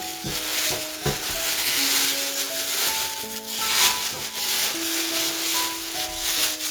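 Background music with a simple melody of held notes, over an irregular rustling, rubbing noise that swells and fades.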